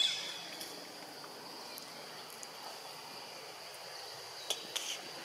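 A steady, high-pitched drone of insects. There is a short, sharp, loud sound right at the start, and two quick clicks near the end.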